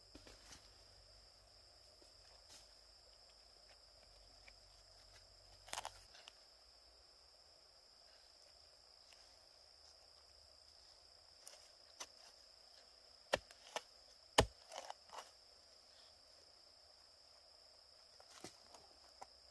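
Scattered snaps and crackles of rotten palm-trunk fibre being torn apart by hand and pried with a knife blade, with the loudest cluster about two-thirds of the way through. A steady high-pitched insect drone runs underneath.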